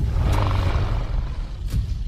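Deep, rumbling dinosaur growl, a designed Carnotaurus creature sound effect, with a few sharp snaps in it, one right at the start and one near the end.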